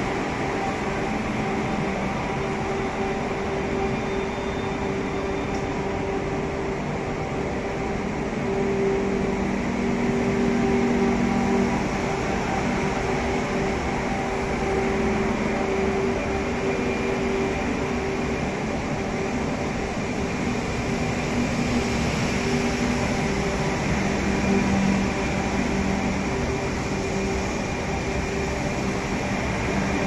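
Renfe CAF variable-gauge electric multiple unit pulling away, its traction motors and inverters humming with a few steady tones that come and go as the cars roll past.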